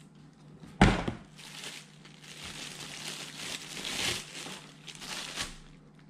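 Thin clear plastic bag crinkling and rustling as a spinning reel is unwrapped from it, with a single sharp thump about a second in.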